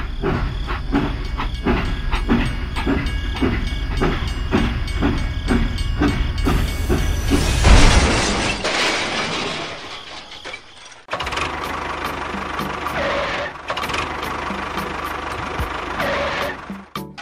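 Steam-locomotive sound of a toy train: rhythmic chuffing at about two to three strokes a second, then a loud hiss of steam about eight seconds in. After a short break near eleven seconds, a steady running noise carries on.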